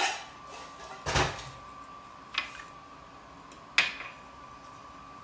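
Spoon clinking and scraping against a ceramic mixing bowl while stirring flour into banana bread batter: four sharp knocks about a second and a bit apart, the second one a longer scrape.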